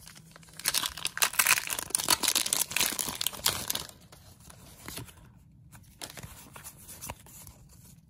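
Foil wrapper of a Pokémon card booster pack being torn open and crinkled: a dense burst of crackling lasting about three seconds, then a few faint rustles.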